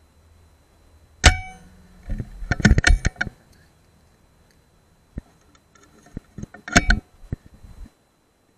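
Air rifle shot: a single sharp crack with a brief metallic ring about a second in, followed by a quick run of sharp clicks and knocks. Scattered clicks and another sharp cluster of knocks come near the end.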